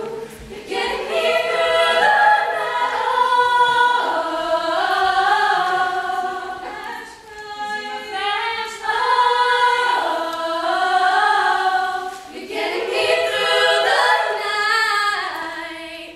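A group of girls singing a cappella in close harmony, in long held phrases with short breaks about seven and twelve seconds in.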